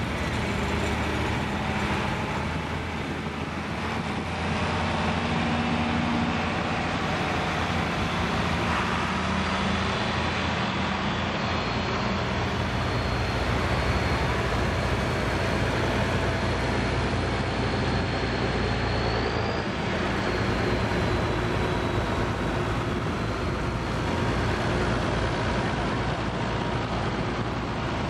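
Engines of a procession of vintage farm tractors (John Deere, Oliver and Farmall) running at a slow steady pace as they drive past one after another.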